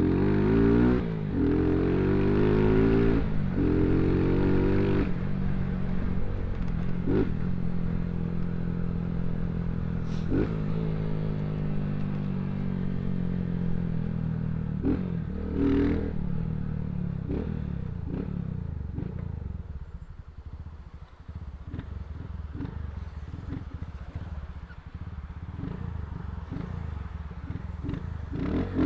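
Motorcycle engine and exhaust under way, the pitch climbing under throttle and dropping at gear changes several times. About two-thirds through it eases off to a lower, quieter note.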